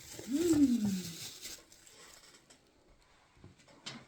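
A brief hummed vocal sound in the first second, rising then falling in pitch. It is followed by quiet with a couple of small clicks near the end.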